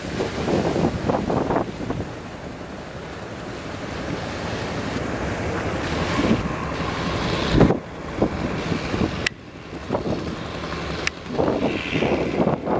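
Strong wind gusting over the microphone with surf breaking behind it, the low rumble rising and falling unevenly. Two sharp clicks come near the end.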